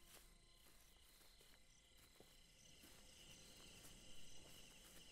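Faint night ambience of crickets chirping steadily, growing a little louder in the second half.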